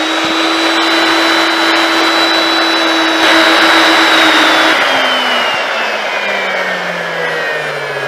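Techno CNC router spindle running with a high whine over the steady rush of a shop vacuum on the dust shoe while it mills a pocket in hardwood. From about five seconds in the whine falls steadily as the spindle winds down at the end of the cut, while the vacuum keeps running.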